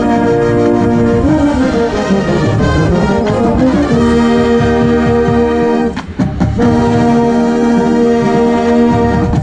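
A drum corps brass hornline playing loudly, with a euphonium right at the microphone. It holds a chord, moves up through a rising passage, then sustains a chord that breaks off briefly about six seconds in before a last long chord released near the end.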